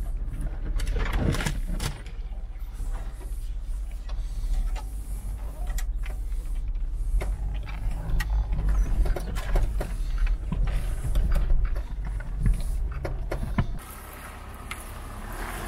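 Branches and thorns scraping and screeching along a Land Rover Discovery's paintwork with repeated knocks and scratches, over the low rumble of the vehicle crawling along in low gear, heard from inside the cabin. Near the end it gives way to a quieter hiss of wind on the microphone.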